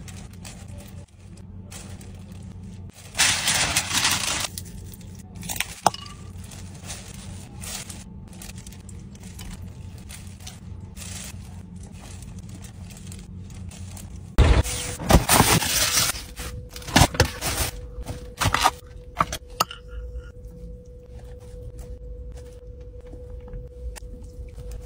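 Crinkling and tearing from hands handling food on a foil tray among plastic wrapping. It comes in short loud bursts a few seconds in and again from about halfway on, over a steady low hum.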